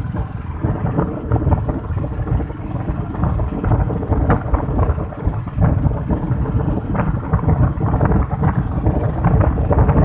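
Royal Enfield Bullet single-cylinder motorcycle running on the move, with wind buffeting the microphone in an uneven, gusting rumble.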